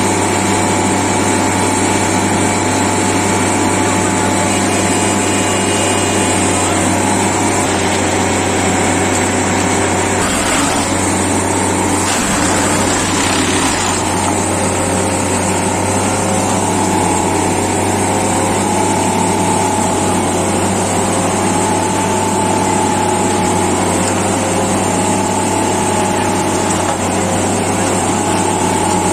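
Railway track tamping machine running steadily, its engine and hydraulics giving a loud, even drone with a low hum and a steady whine. About ten to fourteen seconds in, a rougher, noisier spell comes as the vibrating tamping tines are driven down into the ballast.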